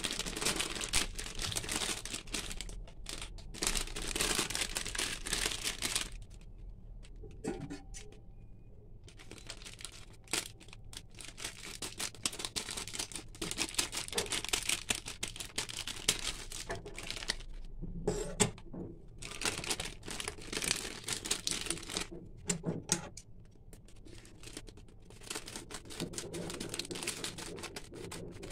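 Thin plastic sheet crinkling as it is handled and cut into a circle with scissors, in stretches of rustle and snipping broken by short pauses.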